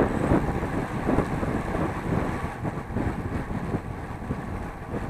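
Wind rushing and buffeting over the microphone while riding, a steady noisy rumble strongest in the low end that eases a little toward the end.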